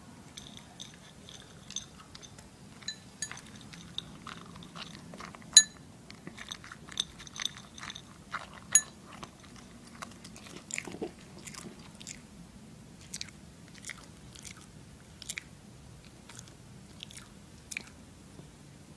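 A toy poodle eating dry kibble from a bowl, chewing with irregular crisp crunches and clicks, a couple of them louder.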